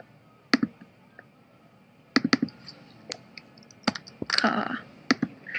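Computer mouse clicks and keyboard keystrokes: single sharp clicks at uneven intervals, with a quick run of three about two seconds in.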